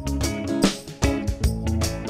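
Background music: a guitar over a steady beat.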